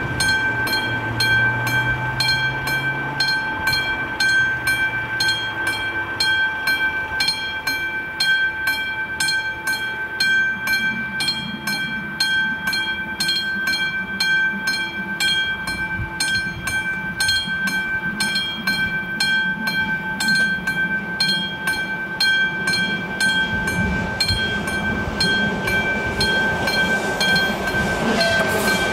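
Classic electromechanical level-crossing bell ringing steadily, about two strokes a second: the warning for an approaching train. Near the end the rumble of the approaching diesel railcar starts to rise.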